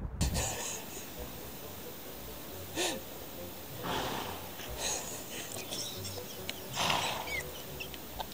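Horses blowing out through their noses: about four short, noisy snorts a second or so apart, the loudest near the end.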